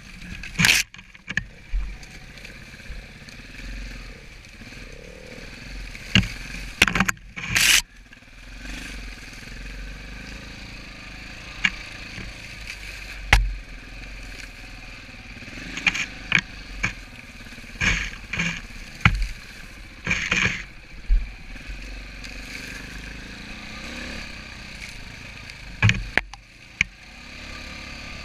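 Enduro dirt bike engine running at low trail speed, its note rising and falling. Frequent sharp knocks, clatter and scrapes come through as brush and rough ground hit the bike.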